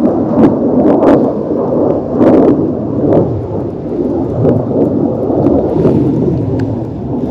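Wind buffeting an action camera's microphone: a loud, uneven rumbling noise, with scattered light clicks over it.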